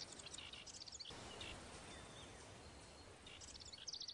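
Faint birds chirping in short runs over a soft background hiss.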